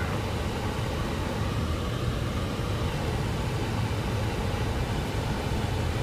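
Car running and its tyres rolling on a snowy, plowed road, heard from inside the cabin: a steady low rumble.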